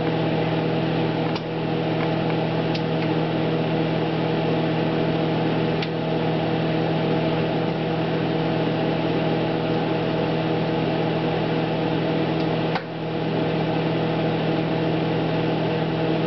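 Sanyo Super Showerwave microwave oven running with whole eggs heating inside: a steady hum over a noisy whir, with a few faint clicks.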